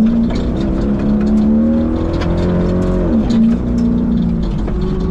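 Engine of a Lexus LX570-based Dakar rally car pulling under load, heard from inside the cabin. Its note climbs slowly, falls sharply about three seconds in, then holds steady again, over many short ticks and knocks.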